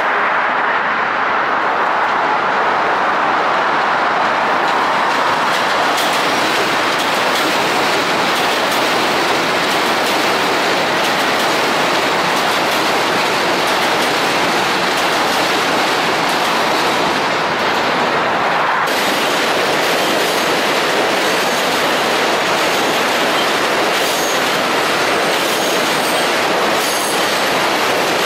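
New York City Subway train running over the Williamsburg Bridge's steel track structure: a loud, steady rumble and rattle of wheels on rails. The sound changes abruptly about two-thirds of the way through, and a few faint high wheel squeals come in near the end.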